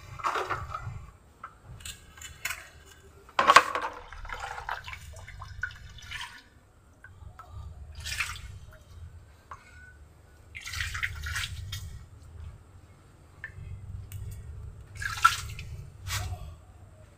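Water poured from a plastic mug onto the soil of a freshly potted bougainvillea, in several short splashing pours; the loudest splash comes about three and a half seconds in.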